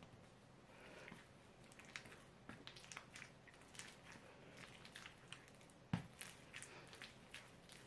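Soft white bread dough being kneaded by hand on a wooden table: faint sticky squishes and light irregular taps as it is stretched and folded. One louder thump comes about six seconds in.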